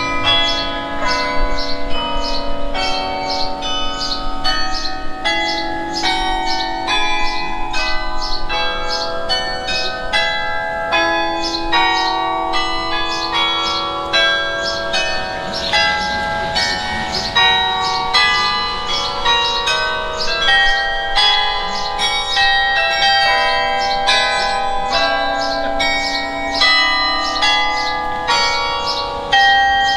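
Carillon playing a tune: tuned tower bells struck several times a second, often two or three notes together, each note ringing on under the next.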